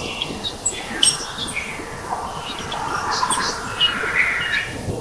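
Dusk bush field recording: many short bird chirps, and in the second half a faint call rising steadily in pitch over about two seconds. The recordist takes it for an ascending call from a territorial display.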